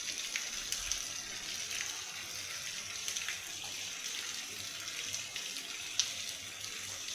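Heavy rain falling, a steady hiss with scattered sharper drop impacts, the strongest about six seconds in.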